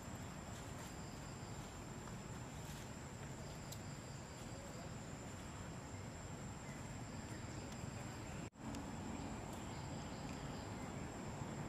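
Forest ambience: a steady high-pitched insect drone over low background rumble, with a few faint ticks. The sound cuts out for an instant about eight and a half seconds in.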